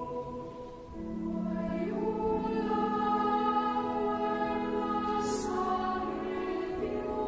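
Church choir singing slow, held notes, the voices coming in about a second in.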